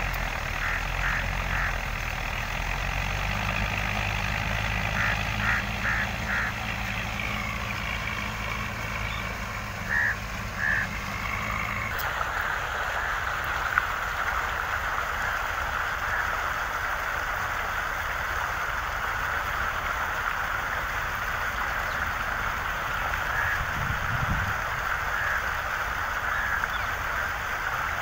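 Diesel tractor engine running steadily under load while pulling a plough, with a few short high-pitched chirps in between. About twelve seconds in, the engine's low hum drops away, leaving a steady hiss.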